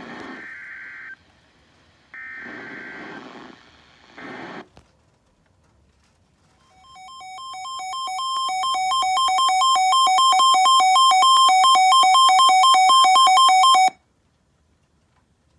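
NOAA Weather Radio Emergency Alert System alert starting. Three short screeching bursts of the SAME digital data header come first. Then a two-tone warbling alert alarm swells in loudness for about seven seconds and cuts off abruptly.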